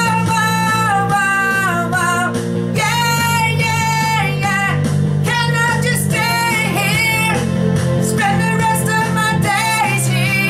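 A man singing a pop song over backing music, holding long notes that bend slightly in pitch.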